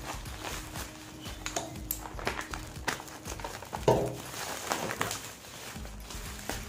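Plastic bubble wrap crinkling and crackling as hands pull it off a boxed camera, in many short irregular crackles, over faint background music. About four seconds in there is one brief louder pitched sound.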